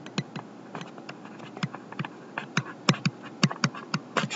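Stylus tapping and scratching on a tablet as words are handwritten: an uneven string of short, sharp clicks, several a second.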